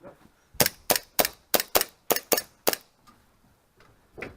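Airsoft gun firing a quick string of single shots, about nine sharp cracks over two seconds, followed by one softer click near the end.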